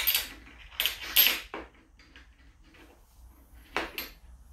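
Sharp clacks and knocks of small hardware being handled against the plywood platform: a cluster in the first second and a half, then a quick double click near the end.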